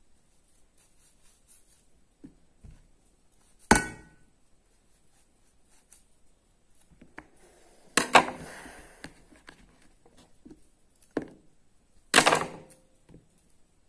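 A knife cutting raw green mango pieces held in the hand. There are faint scraping and handling sounds, and four sharp clacks: about four, eight, eleven and twelve seconds in. The clacks at eight and twelve seconds are the loudest, and each trails into a short rattle.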